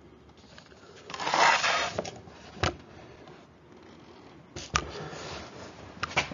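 Handling noise: two bursts of rustling and scraping, about a second in and again past the middle, with a few sharp clicks between and after them, as papers and the camera are moved about on a table.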